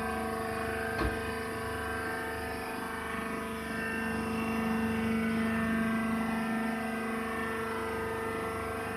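Wood shavings baler running: a steady machine drone made of several steady tones, with a single knock about a second in.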